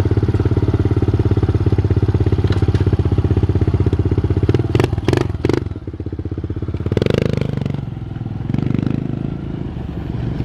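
Small dirt bike engine idling steadily, with a few sharp clicks about five seconds in. The engine then revs briefly as the bike pulls away and keeps running, fainter, as it rides off.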